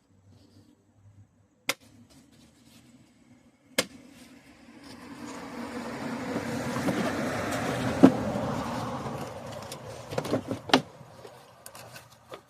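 Two sharp clicks, then a passing car whose noise swells and fades over several seconds, with a few more sharp clicks near the end.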